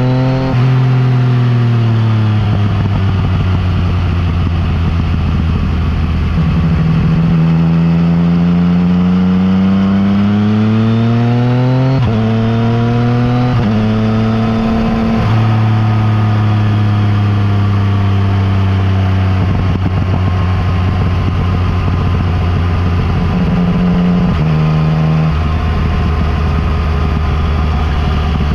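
Yamaha MT-09 Tracer's inline three-cylinder engine through an Akrapovič exhaust, under way: the revs climb and drop again and again as the rider accelerates, shifts gear and rolls off the throttle, with rushing wind noise underneath.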